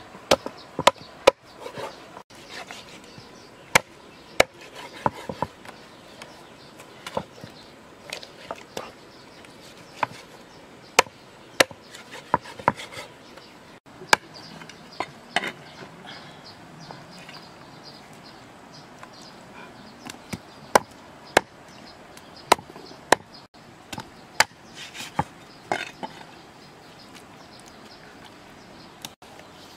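A large knife chopping a plucked duck into pieces on a thick wooden chopping block: sharp, irregular chops, sometimes two or three in quick succession, with short pauses between.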